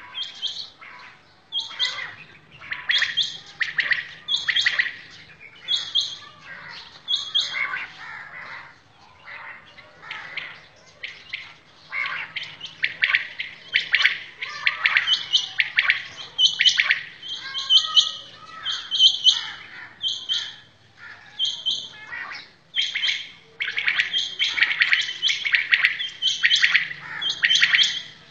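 Caged common quails calling over and over, many short, sharp calls overlapping one another.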